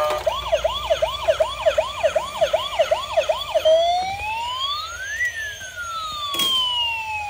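A battery-operated toy ambulance's electronic siren: first a fast yelp of about three rising sweeps a second, then, a little over three seconds in, a switch to a slow wail that rises and falls. There is a single click about six and a half seconds in.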